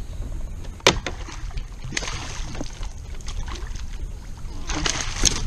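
Hooked fish splashing at the water's surface as it is brought alongside the boat to the landing net, in bursts about two seconds in and again near the end, over a steady low rumble. A single sharp knock about a second in is the loudest sound.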